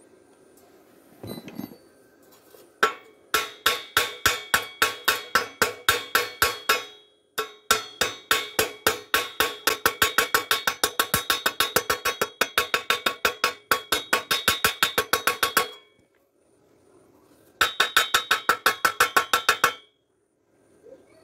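Rapid hammer strikes on a thin steel square pipe, typical of a chipping hammer knocking slag off a stick weld. The hollow pipe rings at the same pitches with every hit, about six or seven strikes a second, in three runs with short pauses between.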